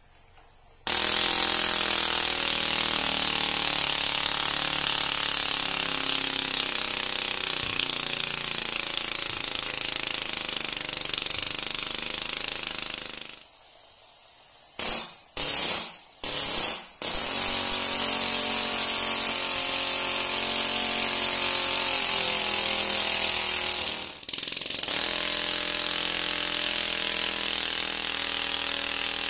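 Miniature two-stroke piston engine running fast on carbon dioxide gas from dry ice subliming in a bottle, a rapid, high mechanical buzz with a hiss of gas. About halfway through it stops for a couple of seconds, gives three short spurts, then runs steadily again, with a brief dip near the end.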